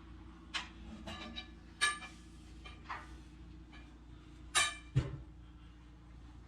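Six or so sharp knocks and clinks that ring briefly, the loudest two about four and a half to five seconds in, over a steady low engine hum.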